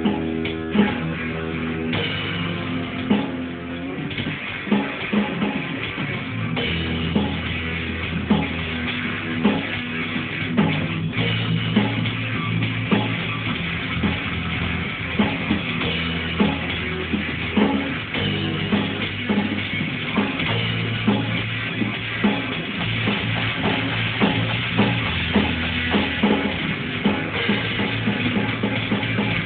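Heavy metal improvisation played live by a band: distorted guitar and drum kit over long, held low notes that change pitch every few seconds, with steady drum hits throughout.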